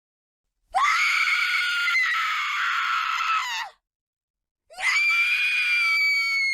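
A woman screaming in terror, twice: a long, high-pitched scream of about three seconds, a short silence, then a second scream held at one steady pitch.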